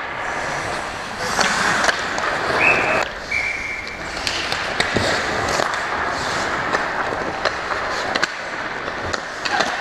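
Hockey skates scraping and carving on the ice, with frequent sharp clacks of sticks and puck hits.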